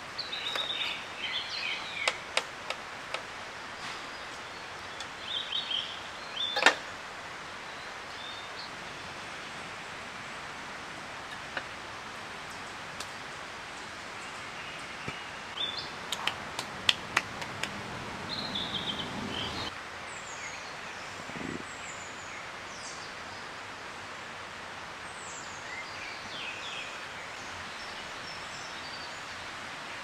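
Forest ambience: a steady hiss with short bird chirps now and then, and a few sharp clicks and taps of tableware at a camp table, the loudest about a third of the way in.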